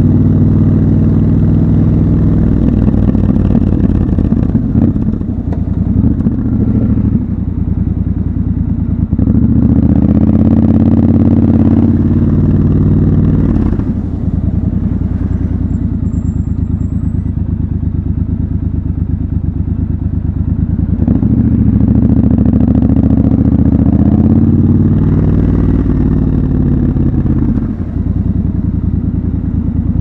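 Triumph Scrambler 1200 XC's 1200 cc parallel-twin engine running under the rider in city traffic. Its pitch climbs and drops several times as it accelerates, changes gear and slows.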